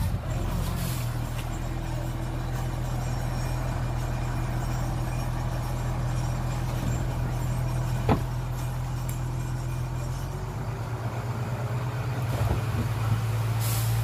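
Heavy diesel engine running steadily at low speed, with a sharp click about eight seconds in and a short hiss near the end.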